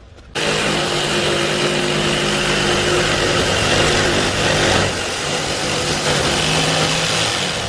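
A motor starts suddenly and runs steadily with a hum and a hiss, dipping briefly about five seconds in, then dies away at the end.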